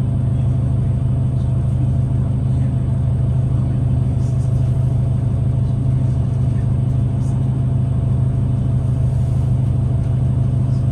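Steady low drone of a 2009 New Flyer DE60LFR diesel-electric hybrid articulated bus idling at a stop, heard from inside the passenger cabin.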